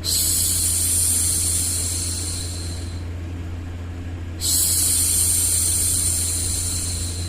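A woman's drawn-out hushing 'shhh' to soothe a baby, heard twice, each lasting about three seconds and trailing off, over a steady low white-noise hum.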